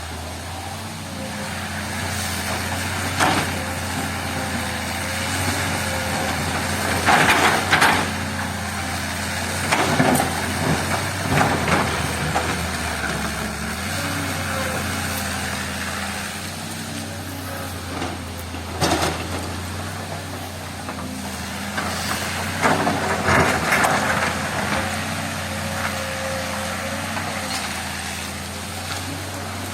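Diesel engine of a heavy earthmoving machine running under load, with loud bursts of scraping and clanking as it digs and moves rock and soil, several times over.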